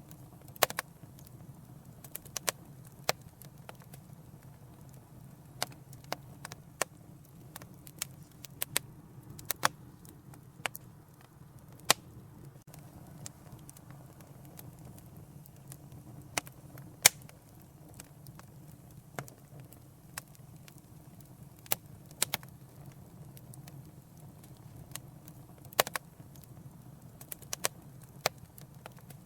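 Wood fire burning in a fireplace, crackling with irregular sharp pops, some coming in quick clusters, over a steady low rumble.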